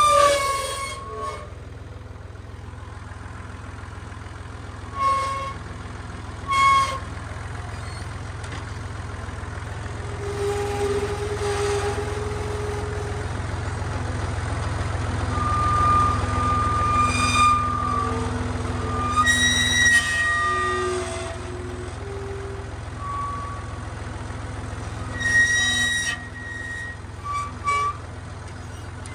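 Massey Ferguson 148 tractor's three-cylinder diesel engine running steadily as it drives under load with a log held in its front attachment. Short high-pitched squealing tones come and go on top of the engine several times.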